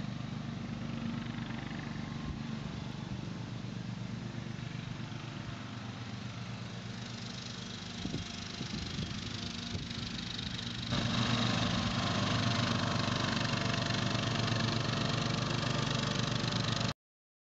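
Ride-on lawn mower engine running steadily while mowing. It gets louder about eleven seconds in and stops abruptly near the end.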